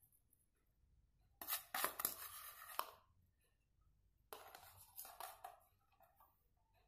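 Metal spoon scraping and clicking against a small bowl while scooping up crushed crumb topping, in two short spells about three seconds apart.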